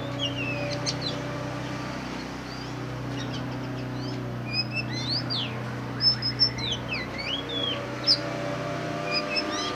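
Black magpie-robin (the all-black form of the oriental magpie-robin) singing: a varied run of clear whistled notes that sweep up and down, mixed with sharp clicks, over a steady low hum.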